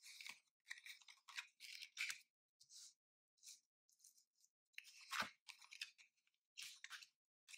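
Tarot cards being drawn from a deck and laid face up on a cloth table mat: faint, scattered rustles and slides of card against card and cloth, with a slightly louder tap about five seconds in as a card is set down.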